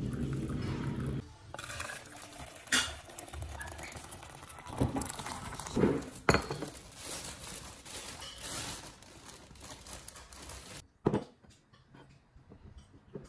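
Water pouring into a ceramic mug, stopping about a second in. Then a ceramic plate, a butter knife and a jar are handled on a kitchen countertop, with a handful of sharp clinks and knocks.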